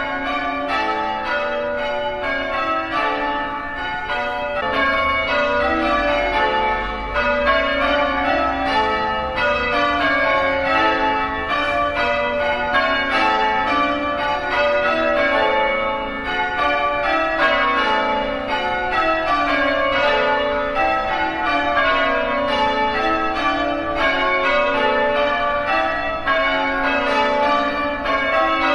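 Church bells change ringing: a steady, unbroken run of strikes, the bells sounding one after another in shifting order.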